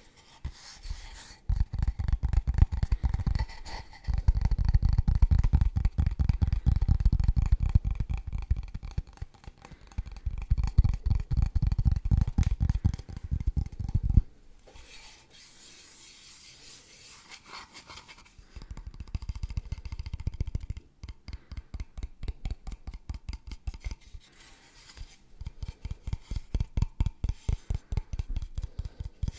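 Rapid fingertip and fingernail tapping and scratching on a small object held close to the microphone, in long dense runs. After about fourteen seconds it goes quieter, then comes back as lighter, more separate taps.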